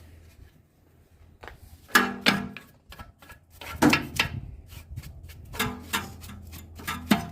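Metal clanks and knocks, some with a brief ringing, from tools and parts being handled at a car's front brake caliper. They come in irregular bursts over a steady low hum.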